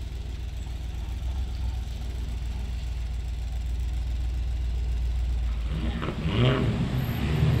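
Mercedes-Benz G-Class engine running with a low, steady rumble that grows slowly louder, rising further about six seconds in.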